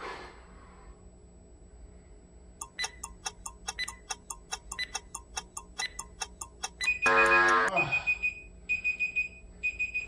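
Workout interval-timer sound effects: a fast ticking, about five ticks a second, over the last seconds of the countdown. A loud buzzer then marks the end of the interval, followed by several short high beeps.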